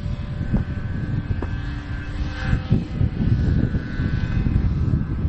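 Radio-controlled model Zero airplane's engine and propeller droning in flight overhead, a thin steady tone. Heavy wind rumble on the microphone runs underneath.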